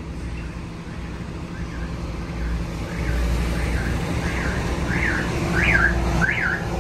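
Truck's diesel engine running at crawling speed, heard inside the cab. From about a second and a half in, an alarm-like warbling chirp, rising and falling about twice a second, grows louder toward the end.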